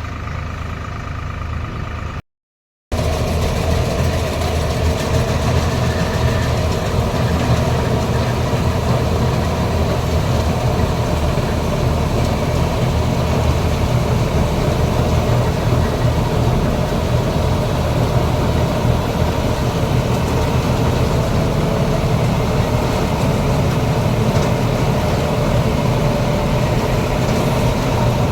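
Combine harvester running steadily, its engine humming under the dense rushing noise of the machine at work. It cuts to silence for about half a second a little over two seconds in, then comes back louder.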